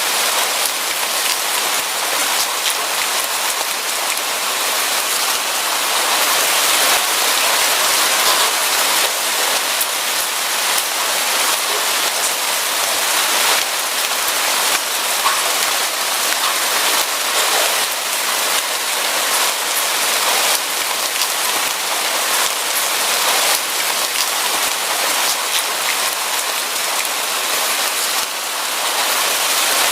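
Steady rain falling: a dense, even hiss of drops with scattered sharper drop ticks. It eases briefly near the end.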